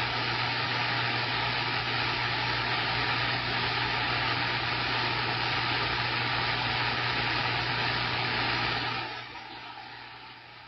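CB radio receiver static: a steady loud hiss with a low hum under it, heard while listening for a distant station's reply on the newly tuned antenna. The hiss drops to a lower level about nine seconds in.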